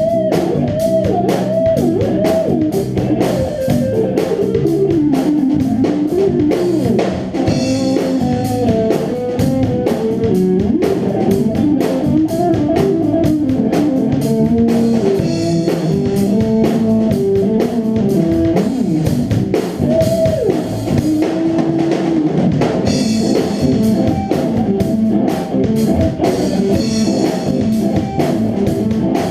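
Band playing an instrumental funk jam: a wandering electric guitar melody over a drum kit.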